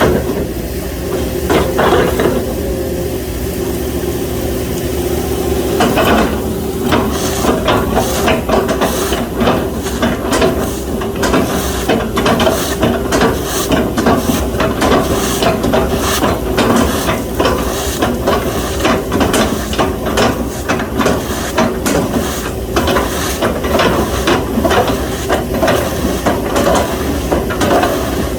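Excavator diesel engine running steadily under load with a hiss of hydraulics. From about six seconds in come many irregular knocks and cracks, as the machine chops up an oil palm trunk.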